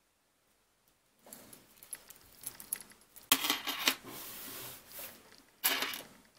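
Metal chain and zinc-alloy charms of a braided bracelet clinking and jingling as it is handled and set down, along with a clear plastic bag crinkling. The sound starts about a second in, with two louder bursts.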